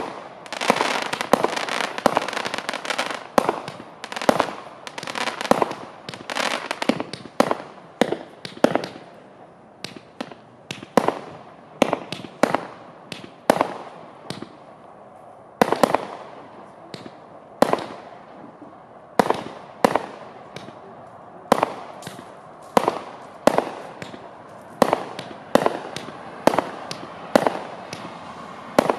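A Klasek 'Fireworks Show 192' cake of 20 mm shots firing. For about the first nine seconds the shots come thick, with crackling between them; after that they are single reports at about two a second.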